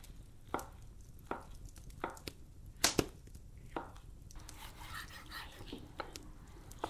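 Knife chopping on a wooden cutting board: about seven sharp knocks, irregularly spaced, over the first four seconds. After that comes a softer, continuous sound of a knife slicing through raw fatty meat.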